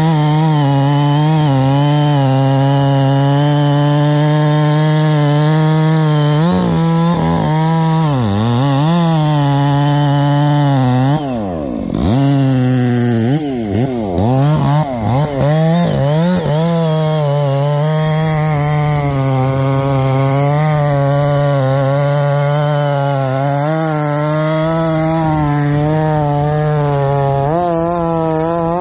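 Two-stroke chainsaw cutting a felling notch into the base of a fir trunk, running at high revs under load. Around eight seconds in, and again around twelve to fifteen seconds in, the revs drop and climb back as the throttle is eased off and reapplied between cuts.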